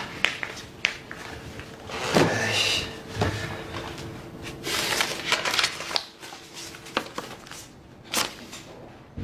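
Soft handling sounds: scattered light knocks and clicks, with a few stretches of rustling as sheets of paper are picked up and handled on a table.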